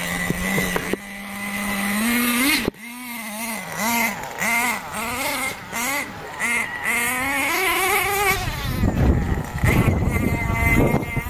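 Radio-controlled car's motor running with a steady whine that rises and cuts off abruptly, then revved up and down in quick repeated throttle blips about twice a second, followed by rough rumbling bursts near the end as the car drives.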